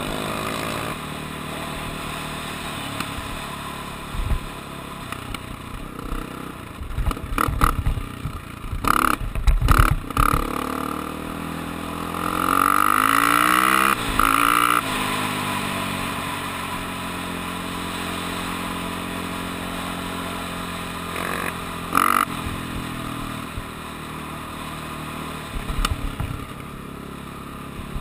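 Off-road vehicle engine running under load, its pitch rising and falling as the rider revs it between about twelve and fifteen seconds in. Several loud knocks and rattles come through, mostly around seven to ten seconds in and again near twenty-two seconds.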